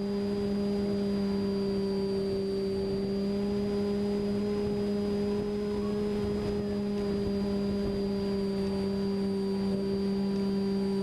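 A steady humming drone held at one pitch with several overtones, unchanging throughout.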